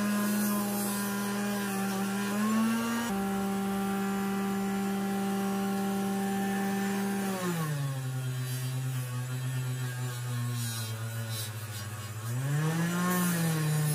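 Small 3-inch bench grinder running a fiber wheel with a steady whine. About halfway through its pitch sinks and stays lower, then briefly rises and falls again near the end.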